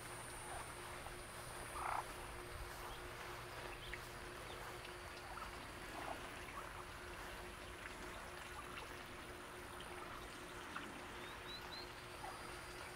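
Quiet outdoor ambience: a steady faint hum with a few short, soft animal calls. The clearest call comes about two seconds in, and a few faint high peeps come near the end.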